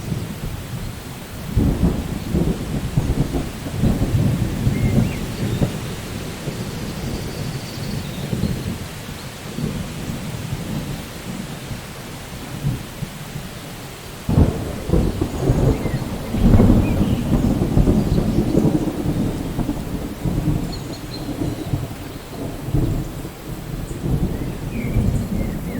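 Steady rain with rolling thunder: one long rumble begins about a second and a half in, and a second, louder roll breaks sharply about halfway through and rumbles on for several seconds.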